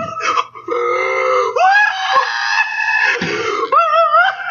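A man laughing hard in long, high-pitched squealing cries that rise and break off.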